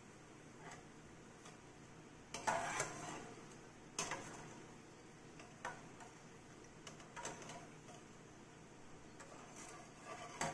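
Steel slotted spoon clinking and scraping against a kadai and a steel plate as fried banana chips are scooped out of hot oil and dropped onto the plate: a series of irregular clicks and knocks, the loudest about two and a half seconds in.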